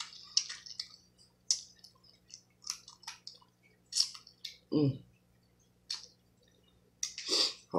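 Close-up eating sounds of someone chewing boiled blue crab meat: irregular wet mouth clicks and smacks, with a short hummed "mm" about five seconds in.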